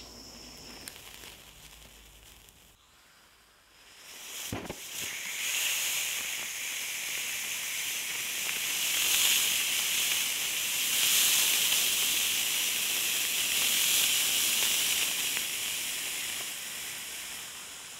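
Small 3D-printed solid-propellant rocket motor, with a 50% oxidizer resin grain and graphite nozzle, burning: after a sharp click about four and a half seconds in, it catches and gives a steady hissing rush that eases a little near the end. It is a weak burn, giving only about 10 grams of thrust.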